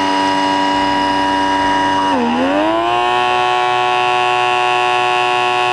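Electric pore vacuum (XN8030 blackhead remover) running with a steady, high buzzing whine. Its pitch dips about two seconds in and slowly climbs back.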